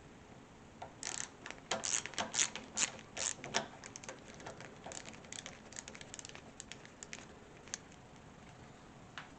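Screwdriver backing out the screws that hold the old deadbolt's latch: a quick run of sharp metallic clicks for about three seconds, then slower, scattered clicks.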